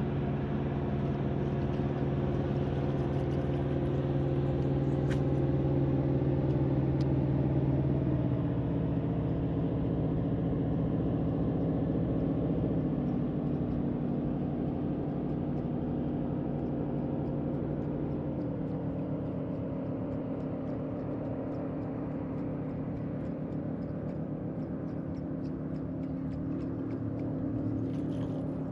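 Electric trolling motor on a bass boat running with a steady hum, its tone shifting in steps a few times as the speed changes.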